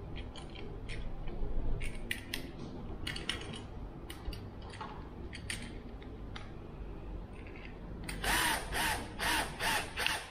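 Small clicks from handling a battery terminal clamp and cable, then, about eight seconds in, a cordless drill-driver running in about six short pulses, tightening the clamp's bolts down on the copper cable end.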